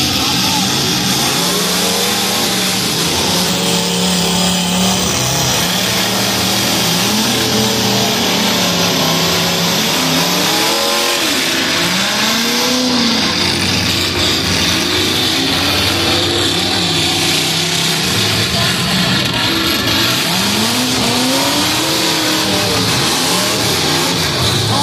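Demolition derby cars' engines revving hard, several at once, their pitch rising and falling over and over as the cars ram each other.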